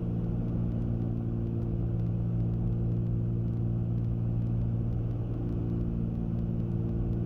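Cabin drone of a Cessna 310Q's two piston engines running steadily in flight, a constant low hum with even overtones.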